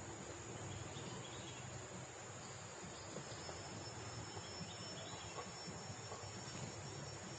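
Faint, steady high-pitched drone of insects.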